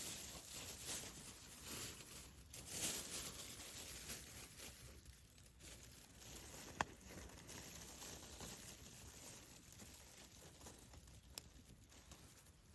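Campfire burning with faint crackling and hiss, livelier in the first few seconds, with two sharp pops, one about seven seconds in and one near the end.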